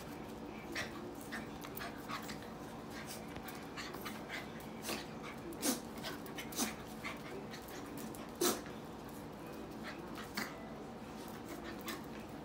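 Red miniature poodle puppies play-wrestling, with scuffling on the floor and small puppy whimpers and yips; a few sharper ones stand out about halfway through.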